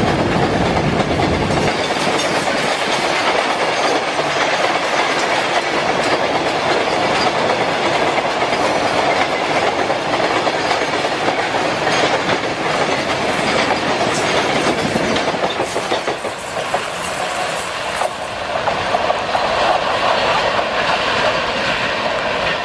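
Steel wheels of a long RO-RO freight train of lorry-carrying flat wagons passing at speed, clattering over rail joints in a steady clickety-clack with sharp clicks. The clatter thins in the last few seconds as the tail of the train draws away.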